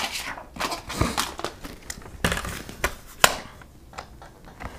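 Construction paper rustling and crinkling as it is handled, with scattered light clicks and knocks as a small paper trimmer is picked up and set in place; the sharpest click comes a little after three seconds in.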